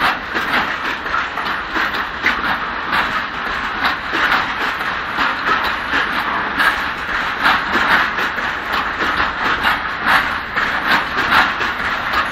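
Freight train of loaded open coal wagons rolling past, a steady rolling noise of steel wheels on rail with many quick clicks as the wheels cross rail joints.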